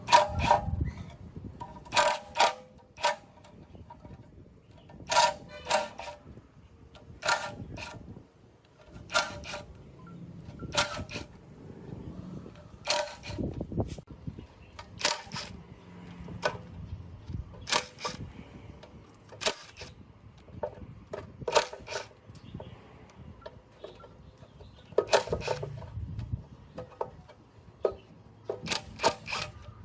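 Metal striking metal: irregular clinks and knocks with a short ring, often in pairs or threes, one group every second or two.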